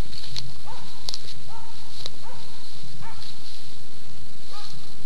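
Swedish elkhound barking steadily in a regular rhythm, about one bark every 0.7 seconds: the stand bark of a dog holding game at bay.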